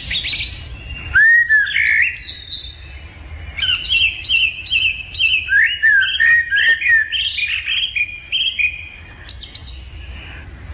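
A bird singing: a quick, varied run of whistled chirps and notes that rise and fall, briefly quieter about two to three seconds in.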